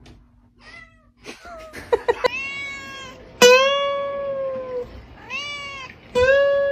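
A domestic cat meowing in several drawn-out, arching meows, the longest about a second and a half, over a few plucked notes on an acoustic guitar.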